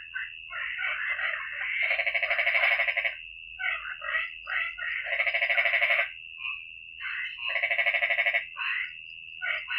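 A chorus of frogs calling over a steady high-pitched ringing trill. Three times, about every two and a half seconds, one loud rattling call of about a second rises above the rest.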